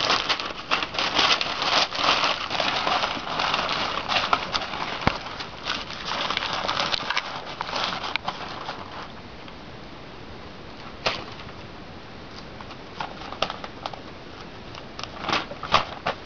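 Crumpled newspaper rustling and crinkling as it is pushed into a shipping box as packing around cups, busy and crackly for the first half, then sparser with scattered clicks and rustles, including a sharp click about eleven seconds in.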